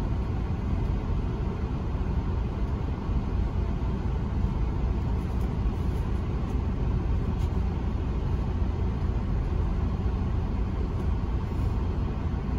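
Semi-truck diesel engine idling, heard from inside the cab as a steady low rumble.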